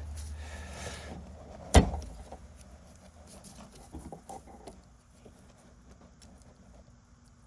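Hand tools working a brake line fitting: one sharp click about two seconds in, then a few faint knocks.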